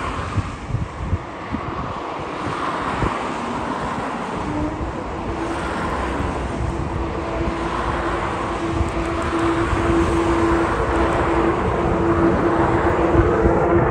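F-35 fighter's single Pratt & Whitney F135 jet engine growing steadily louder as the jet approaches, with a steady hum coming in about four seconds in.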